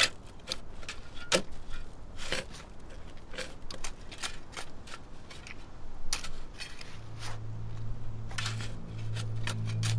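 A run of irregular sharp clicks and knocks. About seven seconds in, a low steady music drone comes in under them.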